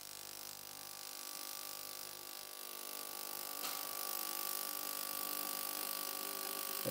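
Ultrasonic cleaner running with a fuel injector in its water bath, lid open: a steady hum of several even tones with a faint hiss above.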